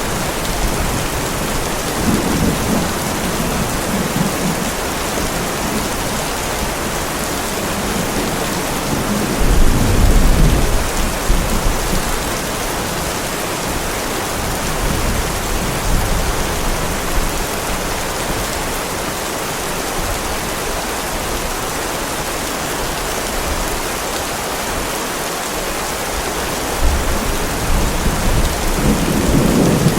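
Heavy rain falling steadily, with rolls of low thunder rumbling about two seconds in, more loudly around ten seconds in, and again near the end.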